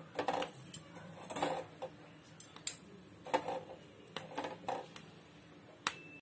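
Metal tongs clicking and clinking against a wire-mesh chili-roasting grill over a gas burner as green chilies are turned: a string of irregular sharp metallic taps.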